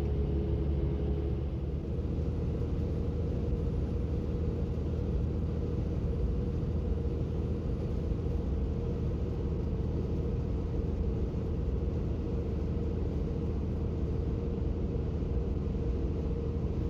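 Dump truck driving at a steady pace: an even, low engine and road rumble with no changes.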